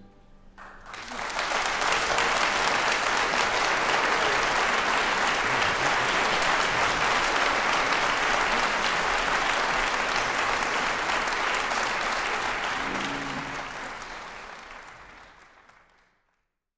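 Concert-hall audience applauding at the end of an orchestral piece, breaking out about a second in, holding steady, then fading away near the end.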